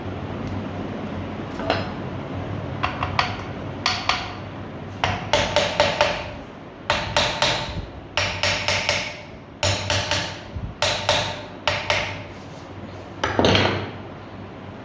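Hammer blows on metal, struck in quick runs of several blows with short pauses, each blow leaving a brief metallic ring; the loudest comes near the end.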